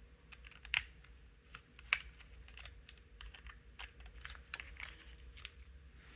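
Irregular small clicks and taps of a precision Torx screwdriver working screws out of an Xbox One controller's plastic housing, the sharpest about a second and two seconds in.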